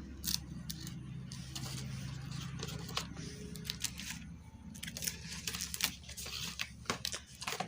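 Rummaging through PC packaging: irregular rustling, crackling and small clicks and knocks of cardboard boxes and plastic being handled.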